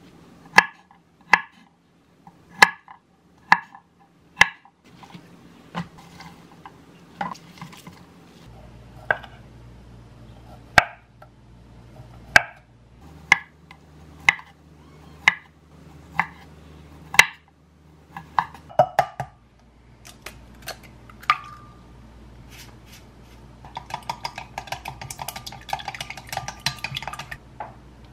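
Kitchen knife slicing a sausage into thin rounds on a wooden cutting board, one sharp chop about every second. Near the end, chopsticks rapidly beat eggs in a glass measuring jug, a fast run of clinking.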